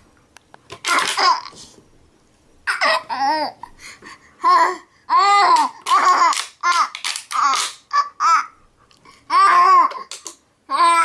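A baby laughing and squealing in a string of short, high-pitched bursts.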